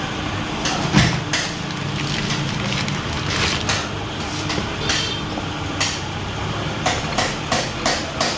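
Metal clinks and clanks as a new steel rear sprocket is handled and fitted onto a motorcycle's rear wheel hub, with one louder knock about a second in and a run of quick, evenly spaced clicks near the end.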